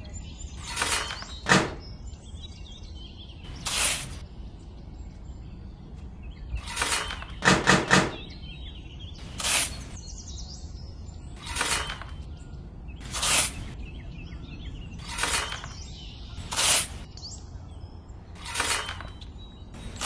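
A miniature metal shovel scraping into dry sand and tipping it into a tin can, a short gritty scrape-and-pour about every two seconds. Three quick sharp knocks come just before the middle.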